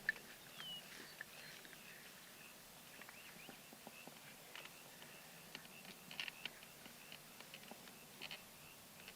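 Quiet outdoor ambience: faint, short high chirps from birds, with scattered small clicks and rustles.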